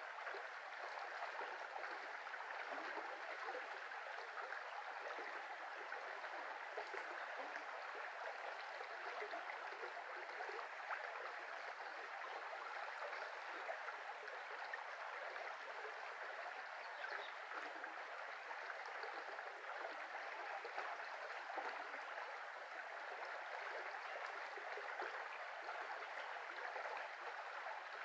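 Shallow, rippling brook flowing under willows: a steady, even rush of running water.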